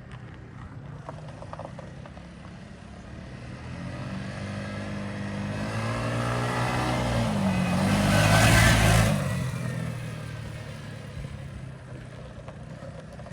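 Yamaha Grizzly 125 ATV's single-cylinder four-stroke engine running as the freshly tuned-up quad rides up, goes by loudest about eight or nine seconds in, and moves away. Its pitch rises on the approach and drops as it passes.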